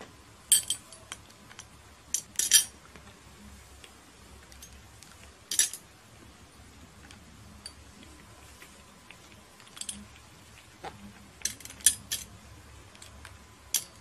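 Glass ornament clinking as a sun conure pecks at it with its beak and tugs the glass cherries from its little bowl: a dozen or so short, sharp, ringing clinks at irregular intervals, some in quick pairs.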